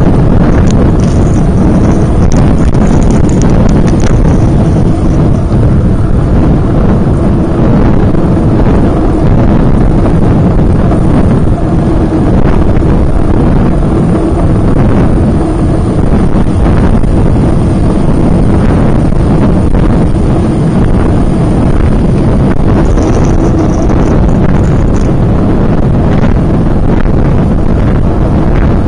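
Steady, loud wind rumble buffeting the microphone of a camera mounted on a moving road bike, riding in a group on a wet road.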